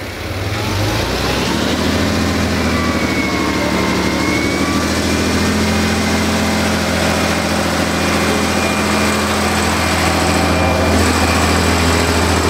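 TFC class 614 (VT614) diesel multiple unit pulling away: its diesel engine running and growing louder about a second in as the train moves off, with a thin high squeal from about two seconds in.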